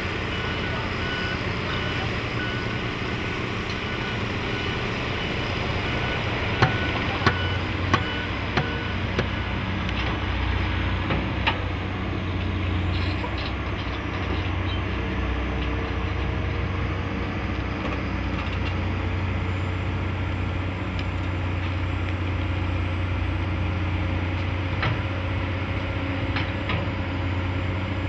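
Heavy diesel earthmoving machinery runs steadily: a Caterpillar bulldozer and an excavator working sand. A backup alarm beeps during the first four seconds or so, and a run of sharp metallic clanks comes between about six and twelve seconds in.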